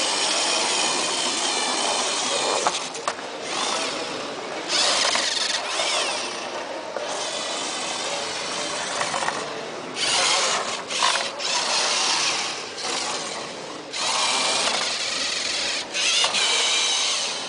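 Small electric drive motors of a line-following robot whining in repeated bursts, rising and falling in pitch as it drives, stops and reverses.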